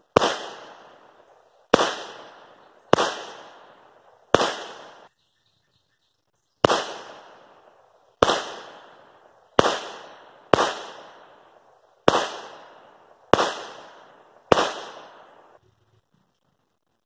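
Eleven single shots from a Smith & Wesson M&P Shield EZ .380 ACP pistol, fired one at a time about one to one and a half seconds apart, each a sharp crack with a short ringing tail. The string breaks off suddenly about five seconds in and picks up again after a short pause.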